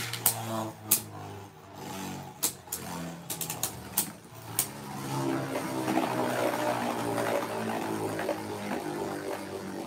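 Two Beyblade Burst spinning tops whirring in a plastic stadium, with sharp clacks as they strike each other several times in the first five seconds. After that the whir runs on steadier and fuller, fading slightly near the end.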